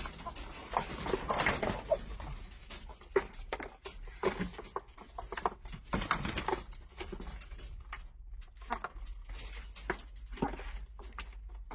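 Domestic chickens making short clucking calls over scattered taps, scratching and rustling.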